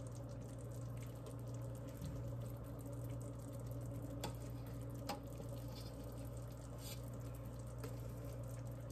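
A metal spoon skimming foam off cooking berry jam in a stainless steel pot: faint wet scooping sounds, with two light clicks of the spoon on the metal about four and five seconds in, over a low steady hum.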